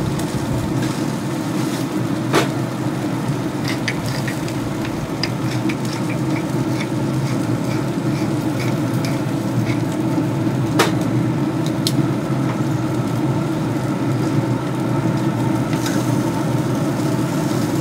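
Pellet smoker running with a steady low hum while the chickens cook, with a few sharp metallic clicks, one about two seconds in and two more near eleven and twelve seconds.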